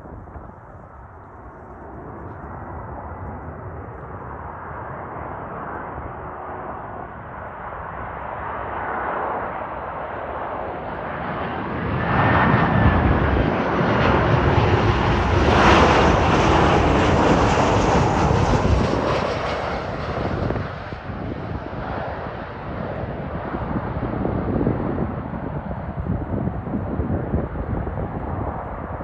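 Boeing 737-800 airliner with CFM56 turbofans on landing approach, passing low overhead. The jet noise builds steadily, is loudest and harshest a little past halfway through, then slowly dies away as the plane moves off.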